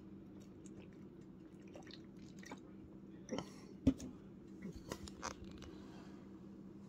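A person chewing food close to the microphone, with scattered short crunches and mouth clicks; the sharpest crunch comes about four seconds in.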